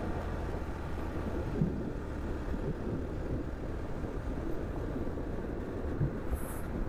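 Benelli TNT25 motorcycle's single-cylinder engine running steadily on the move, heard as a steady low rumble, with a brief hiss near the end.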